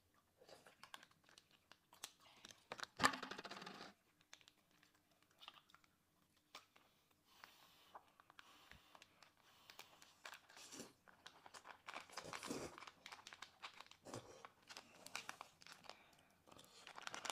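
Quiet eating sounds: a small plastic snack packet crinkling and being torn open, with scattered light clicks of chopsticks against the bowls. One louder rustle comes about three seconds in.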